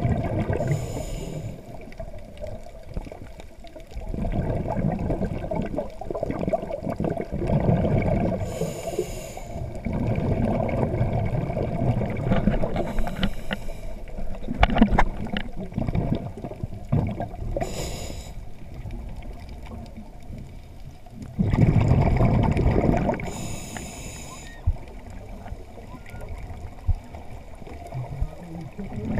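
Scuba diver breathing through a regulator underwater: a brief hiss on each inhale every few seconds, and a low bubbling rumble of exhaled air between them.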